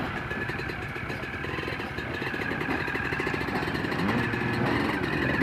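Several off-road motorcycle engines idling together, with one revving up briefly about four seconds in.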